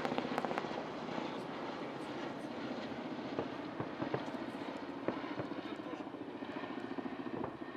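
Kamov Ka-52 attack helicopter flying past, its coaxial rotors beating in a fast, steady pulse over the whine and rush of its turbine engines.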